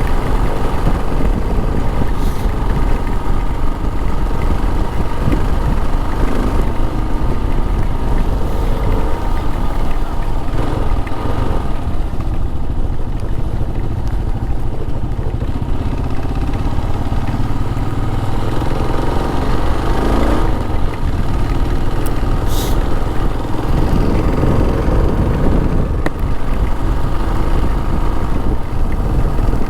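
Motorcycle engine running while riding, with steady wind rumble on the microphone; the pitch rises and falls a few times, and there is a brief sharp click about three-quarters of the way through.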